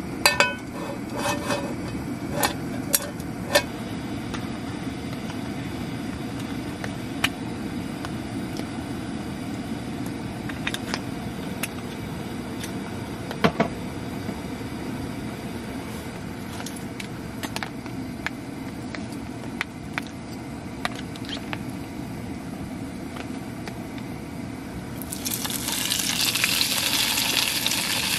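A frying pan is set down on a gas camp stove with a few metal clinks, over a steady low rushing background. About 25 seconds in, marinated chicken galbi goes into the hot oil and a loud sizzle starts suddenly.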